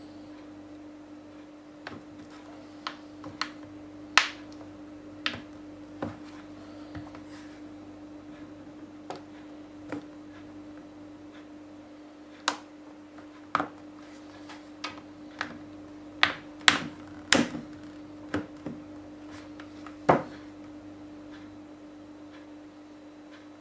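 Sharp, irregular clicks and snaps as a thin metal pick is worked along the edge of an ASUS MeMO Pad 8 tablet, prying the cracked touchscreen loose from its plastic frame. A steady low hum runs underneath.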